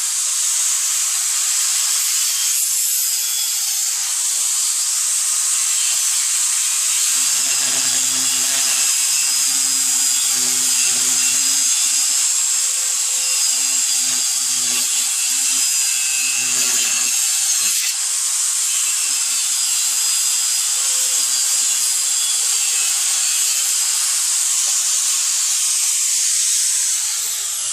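Makita 4-inch angle grinder with a fiber metal cutoff wheel cutting through cast iron drain pipe: a steady high-pitched whine and grinding hiss. A lower grinding note comes and goes through the middle as the wheel bites, and the cut wears the brand-new wheel away. Right at the end the grinder is switched off and its whine falls as the wheel spins down.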